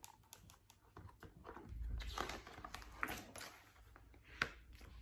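Faint rustling and light taps of a large hardback picture book's page being turned and the book handled, with one sharper click near the end.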